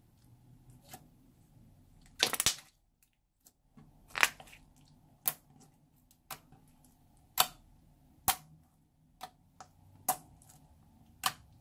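Slime being pressed and squeezed by hand, trapped air popping out in sharp clicks about once a second, with a louder cluster of crackling pops about two seconds in.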